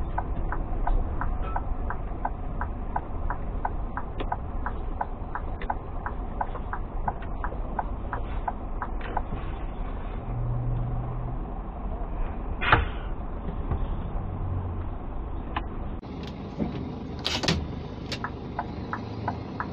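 Cab interior of a Scania G460 truck: its six-cylinder diesel engine runs with a low steady rumble under a turn-signal indicator ticking about twice a second. Two louder sharp knocks come about 13 s and 17 s in.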